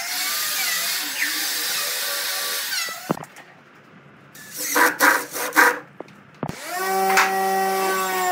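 Corded electric drill boring into pine, running steadily for about three seconds. After a short lull, a cordless drill/driver runs in short bursts, and near the end a steady motor hum comes in.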